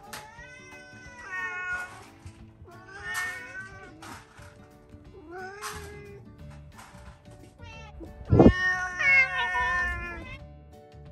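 Domestic cats meowing repeatedly for food, about five separate meows. The loudest and longest comes about eight seconds in. Background music runs underneath.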